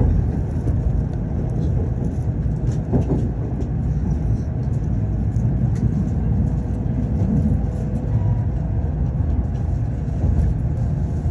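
Shinkansen train running just after departing Tokyo Station, heard from inside the passenger car: a steady low rumble of the moving train, with a few faint clicks.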